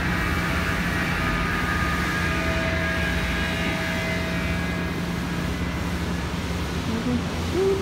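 Steady mechanical drone: a low hum with a rumble beneath and several faint whining tones above it.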